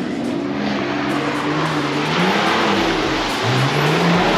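A 4x4's engine working off-road. Its note holds steady, dips about halfway through, then climbs as it revs up near the end, over a rushing noise that grows louder.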